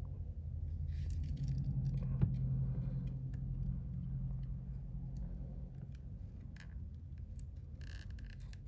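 Small clicks and light scrapes of hand tools working on a smartphone, over a low steady hum.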